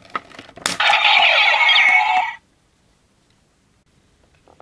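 Plastic clicks as the Kikai face plate is pulled off the DX Mirai Driver toy belt. Then about a second and a half of a loud hissing electronic sound effect from the toy's small speaker, which cuts off sharply.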